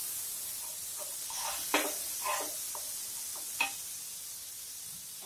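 Butter sizzling steadily as it melts and bubbles in a hot pan, with a few short scrapes and taps of a steel spoon spreading it across the pan about halfway through.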